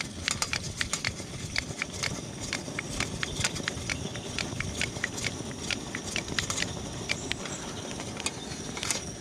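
Twenty-year-old MSR WhisperLite stove's fuel-bottle pump being worked by hand: a quick, uneven run of clicks from the plunger strokes, about three or four a second, over the steady rushing of the lit burner.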